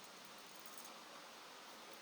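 Near silence: a faint steady hiss of room tone, with a few faint light ticks about two-thirds of a second in.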